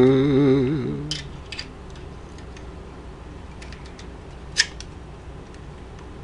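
A brief wordless vocal hum, rising then wavering in pitch, at the start. It is followed by scattered small clicks and taps of an EZK halogen flood bulb being pushed into a Bell & Howell Super 8 projector's lamp holder, with one sharper click about four and a half seconds in.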